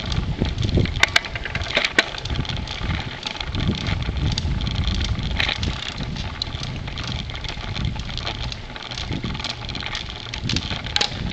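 Wind buffeting the microphone of a camera carried on a moving bicycle, over the rumble of tyres rolling on a leaf-strewn path, with a few sharp clicks of the bike rattling in the first two seconds.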